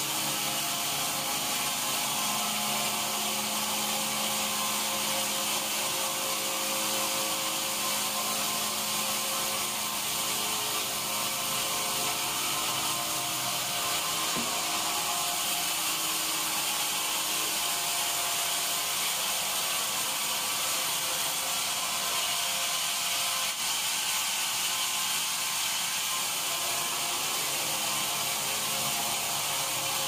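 Sawmill band saw running and cutting lengthwise through a large mahogany log: a steady high hiss from the blade with a low motor hum beneath.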